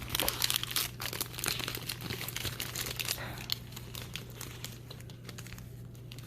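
Foil wrapper of a Pokémon trading card booster pack crinkling and tearing as it is opened. The crackling is dense for about the first three seconds, then dies down to faint rustles.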